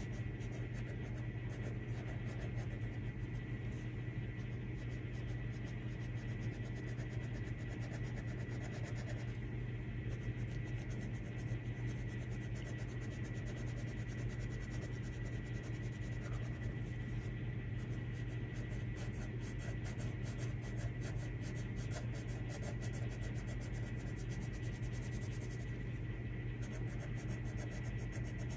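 Coloured pencil scratching on paper in quick shading strokes, over a steady low hum and a faint steady high tone.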